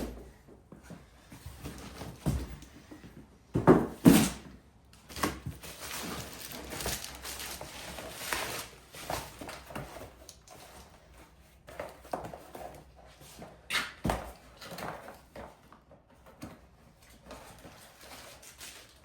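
Cardboard and plastic packaging rustling as rear shock absorbers are pulled out of their box, with a few sharp knocks as the parts are handled, the loudest a pair about four seconds in.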